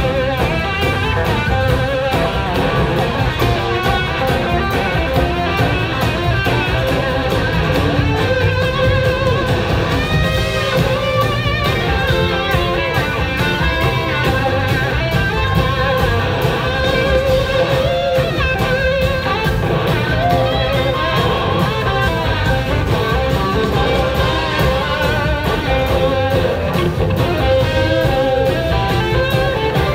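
Live rock band playing an instrumental passage, two electric guitars leading with wavering, gliding lines over bass and drums.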